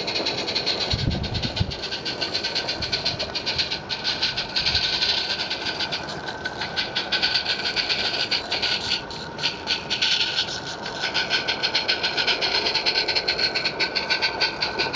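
Small live-steam garden-railway locomotive chuffing as it hauls a long train of vans, with the rapid clicking of the locomotive and wagons on the track, drawing closer near the end. A brief low rumble about a second in.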